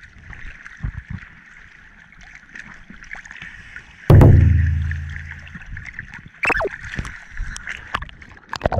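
Choppy sea waves sloshing and splashing against a waterproof camera housing at the waterline, with irregular small splashes. About four seconds in, a sudden loud low thump fades away over a couple of seconds.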